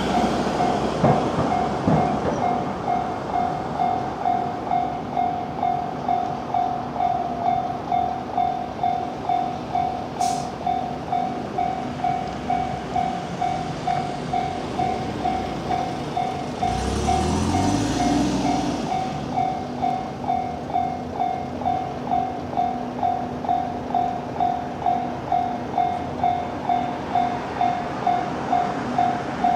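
Japanese railway level-crossing warning bell ringing steadily at about two strikes a second, over the steady noise of a train at the crossing. A brief swell of low engine noise comes about seventeen seconds in.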